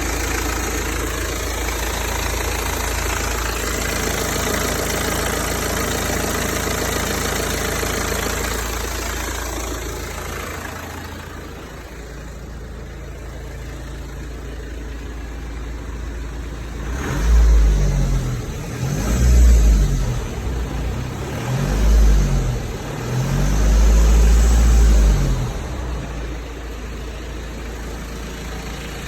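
BMW 320d's four-cylinder diesel engine idling steadily, then revved four times in quick succession in the second half, each rev rising and falling back.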